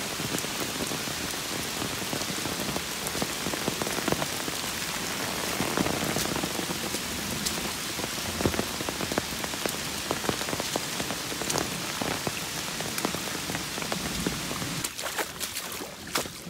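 Steady rain falling, with individual drops striking close by as sharp ticks over the even hiss of the downpour.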